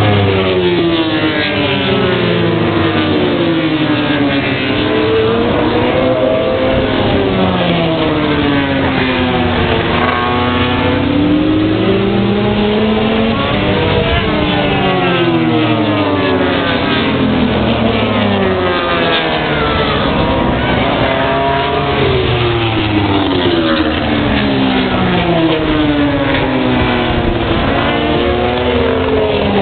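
Several racing motorcycle engines revving hard, overlapping, their pitch rising and falling again and again as the bikes accelerate and brake around the circuit.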